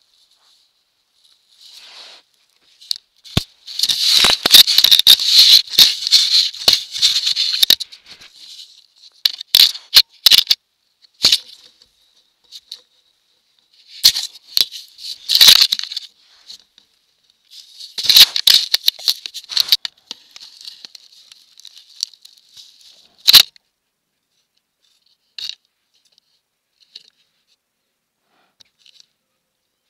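Irregular bursts of rustling and crackling close to a trail camera's microphone, with sharp clicks, over a faint steady high-pitched whine. The bursts die away to a few scattered clicks near the end.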